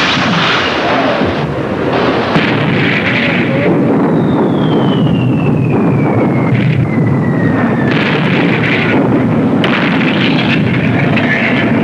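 Naval gunfire and shell explosions over a dense, continuous battle din, with several sharp reports. A long whistle falls steadily in pitch through the middle.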